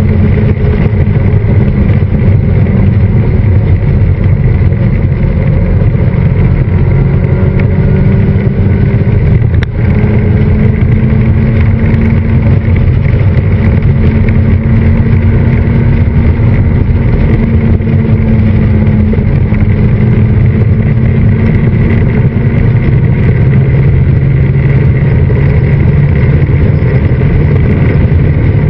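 Westfield kit car's Honda Fireblade inline-four motorcycle engine running under way, heard from the open cockpit with heavy wind rush. The engine note holds fairly steady and climbs slowly in places, with a brief dip about ten seconds in.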